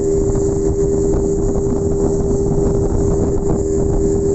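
Boat engine running steadily under way, a constant droning note with even noise.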